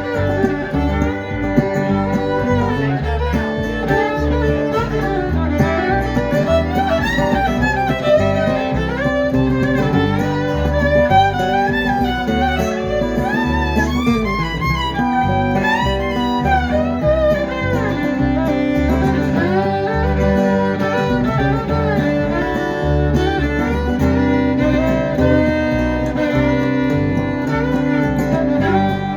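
Live country band playing an instrumental break: a fiddle takes a solo over strummed guitar.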